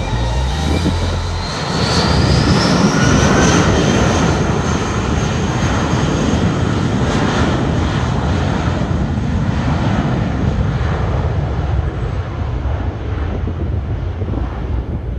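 Airbus A320-family jetliner's engines spooling up to takeoff thrust for the takeoff roll: a whine rises in pitch over the first few seconds over a loud steady jet roar. The roar then fades gradually as the jet moves off down the runway.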